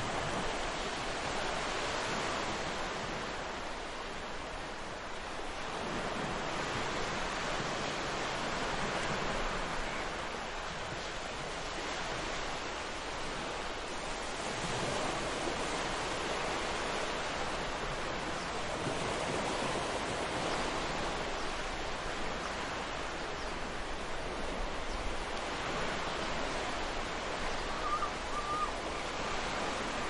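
Ocean surf on a beach: waves breaking and washing up the shore in a steady hiss that swells and eases every several seconds.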